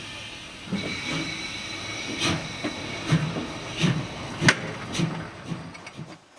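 Narrow-gauge steam locomotive pulling a train away, its exhaust chuffing in a slow, even beat over a steady hiss of steam.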